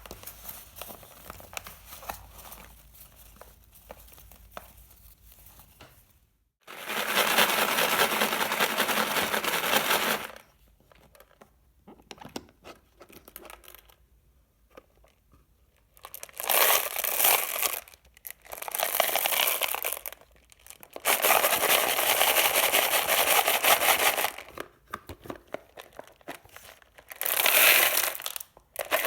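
Candy packaging and candies being handled: several loud stretches of dense crinkling and rattling, each lasting a few seconds, the longest about three seconds. Quieter scattered small clicks and rustles fall between them.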